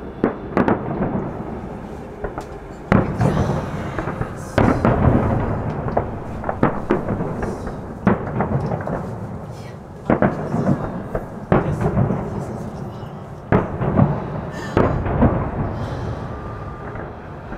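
Aerial firework shells bursting: a dozen or more sharp bangs at uneven intervals, each trailing off in a rumbling echo.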